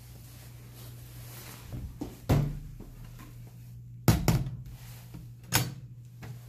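Toilet stall partition door knocking and its latch clacking: a sharp thunk about two seconds in, two more close together around four seconds, and one near the end, each ringing out briefly in the small tiled room. A steady low hum runs underneath.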